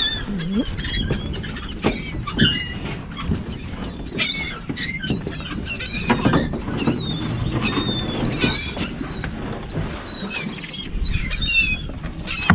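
Gulls calling again and again, many short high cries overlapping one another, over a steady low rumble of wind and water.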